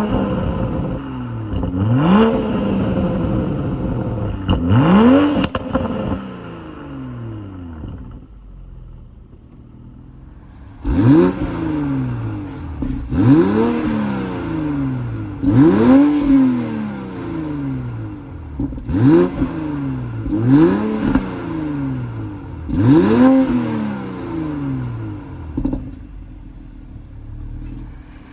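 Toyota GR Supra engine being blipped in sport mode, about three quick revs and then, after a short lull, about seven more, each rising and falling back to idle. Sharp crackles and pops come from the exhaust as the revs drop.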